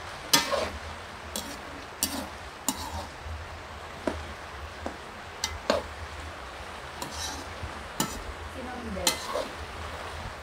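Metal slotted spatula stirring raw peanuts frying in oil in an aluminium wok, scraping the pan with irregular clinks about once a second.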